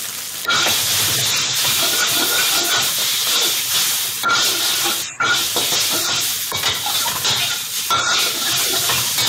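Minced garlic and rice noodles sizzling loudly in hot oil in a wok. The sizzle jumps up about half a second in as the garlic hits the oil, and a metal wok spatula scrapes and tosses the noodles against the pan.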